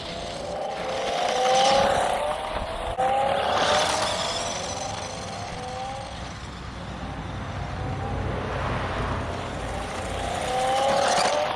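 Battery-powered 1:14 scale RC monster truck's electric motor whining, rising in pitch again and again as it speeds up, with louder surges of tyre noise on the ground.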